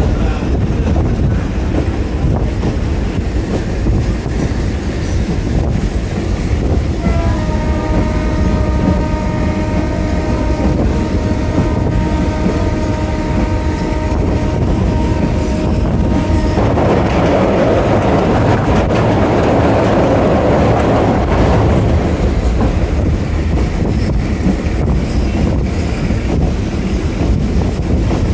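Passenger train running with a steady low rumble, and one long horn blast of about nine seconds beginning about a quarter of the way in. Right after the horn stops, a harsher rushing noise rises over the rumble for a few seconds.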